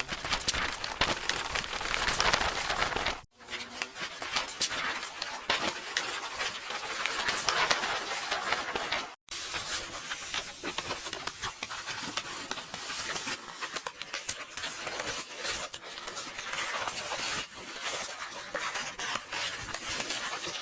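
Paper rustling and crackling, like book pages being turned and handled, in three long stretches broken by short silences about three and nine seconds in. It is an AI-generated sound effect.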